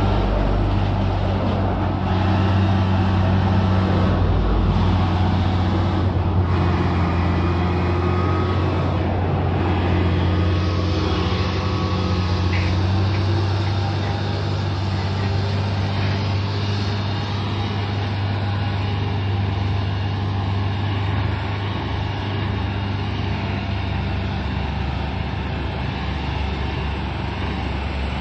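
Heavy truck's diesel engine running steadily with road noise, a low even hum.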